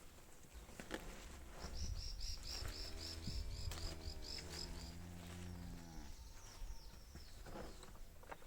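A cow mooing: one long call of about three and a half seconds, dropping in pitch partway through. A bird calls over it in a quick run of short high notes, about four a second.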